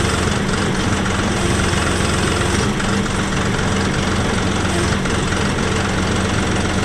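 John Deere 5075E tractor's diesel engine running steadily at idle while the loader's third-function hydraulic circuit is being pressurised.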